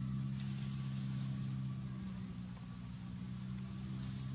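Steady low engine hum with a thin, high steady tone above it.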